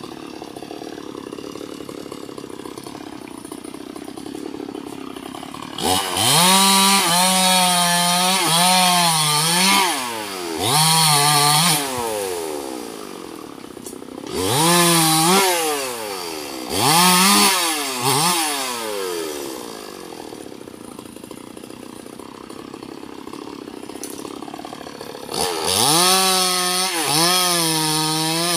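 Chainsaw idling steadily, then revved hard in about five bursts of a few seconds each, its pitch rising and wavering before dropping back to idle. In the last burst near the end it is cutting into a rubber tree trunk.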